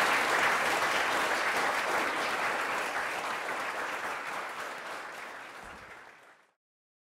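Audience applauding at the end of a talk, the clapping slowly dying away and cutting to silence about six and a half seconds in.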